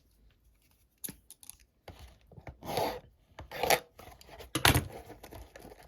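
Trading-card packaging being handled: irregular crinkling, tearing and clicking, with a few louder bursts in the second half.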